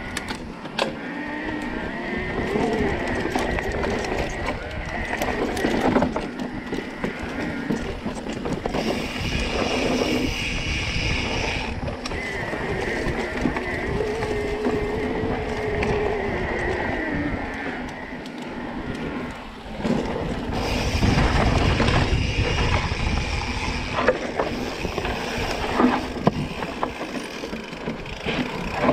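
Electric mountain bike ridden along a dirt trail: a motor whine that rises and falls with speed, tyre noise, and sharp rattles and knocks over bumps, with wind noise on the microphone.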